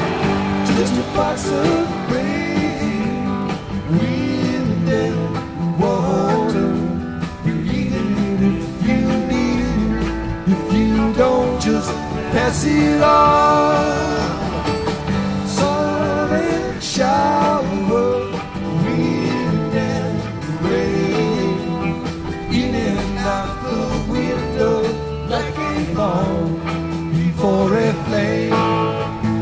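Rock band playing live: electric guitars over bass and drums, with a voice singing at times.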